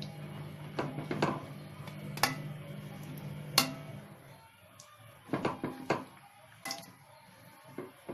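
Kitchen utensils knocking and clinking against a frying pan with stuffed brinjals in it, a scattering of sharp knocks several times. A steady low hum fades out about halfway through.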